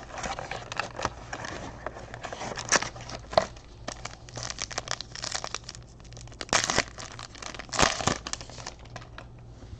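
Trading card packs being torn open and their foil wrappers crinkled by hand, a run of crackling and rustling with two louder bursts of crinkling about six and a half and eight seconds in.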